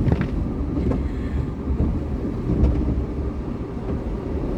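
Automatic car wash working over a car, heard from inside the cabin: a steady low rumble with a few faint knocks.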